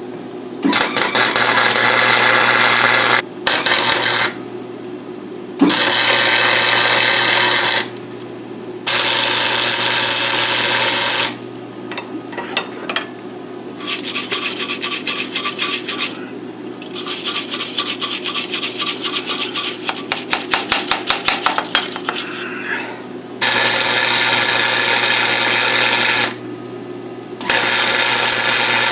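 Grinding on steel in repeated bursts of a few seconds each, starting and stopping sharply, with a rougher, rapidly repeating scratchy stretch in the middle, over a steady low hum. This is metal being trimmed and cleaned up for welding.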